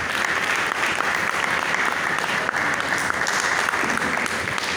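Audience applauding, many hands clapping steadily and tailing off near the end.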